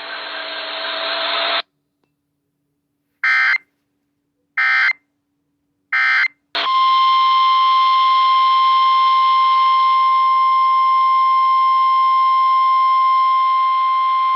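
Emergency Alert System signals on NOAA Weather Radio. A brief hiss at the start is followed by three short warbling data bursts about a second and a half apart (the SAME header that encodes the alert). Then, about six and a half seconds in, a loud, steady single-tone warning alarm begins and holds, announcing a new tornado warning.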